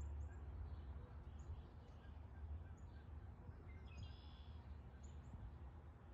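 Faint, scattered bird chirps over a steady low rumble, with one longer warbling bird call about four seconds in.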